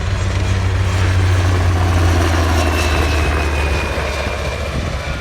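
HH-60G Pave Hawk helicopter passing low overhead: its rotor beat peaks about two seconds in and then fades, with a high whine that falls slightly in pitch as it moves away.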